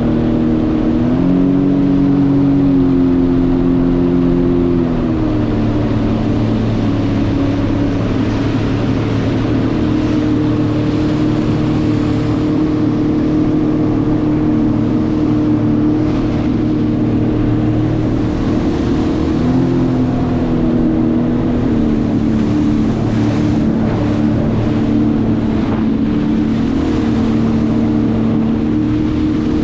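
Jet ski engine running steadily under way, its pitch stepping up about a second in, dropping around five seconds in, and rising briefly again around twenty seconds in, over a steady rushing noise.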